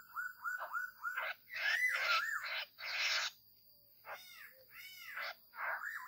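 A flock of poksay laughingthrushes calling: a quick run of about five downslurred whistles, then loud harsh chattering bursts, then a few arched rising-and-falling notes, over a faint steady high whine.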